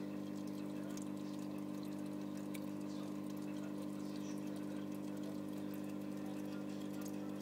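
Steady hum of an aquarium pump running, with a light wash of water noise and a few faint ticks.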